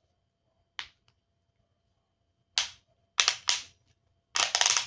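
Sharp plastic clicks and snaps as a metal broom-handle section is fitted and twisted into the broom head: one snap about a second in, a few more from the middle on, and a rapid run of clicks near the end.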